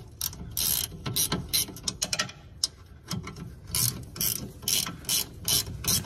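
Hand ratchet clicking as it turns a 13 mm bracket bolt to tighten it down. The pawl clicks come in uneven runs, turning into a steadier, louder string of about two or three clicks a second in the second half.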